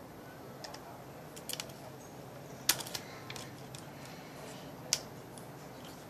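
Scattered sharp clicks and taps of parts being handled and fitted on a scoped rifle, with two louder clicks, one a little under three seconds in and one about five seconds in.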